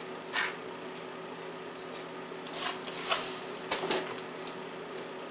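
Brief rustling scrapes, a few of them and mostly in the second half, as crumb topping is scooped from a plastic bowl and sprinkled by hand into aluminium foil pans, over a faint steady hum.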